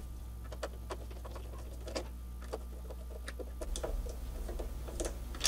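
Small screwdriver backing out a Torx 10 screw from a PS3 Phat's plastic casing: irregular light clicks and ticks of the bit, with hands knocking the plastic shell, over a faint steady low hum.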